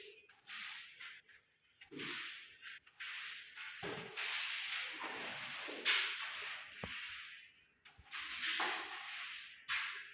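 Broom sweeping construction dust across a floor in a series of brushing strokes, about one a second with short pauses between them.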